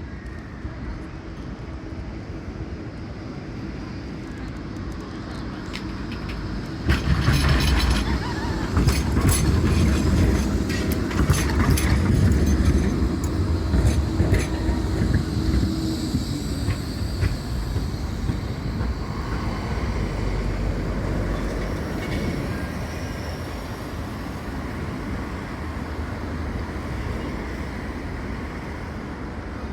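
Tram passing close by. A steady hum builds, then the wheels click and clatter over the rails, loudest from about seven to sixteen seconds in, and the sound fades as the tram moves away.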